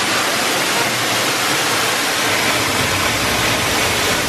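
Giessbach Falls, heard from the walkway right behind the curtain of falling water: a loud, steady rush of water pouring down close by.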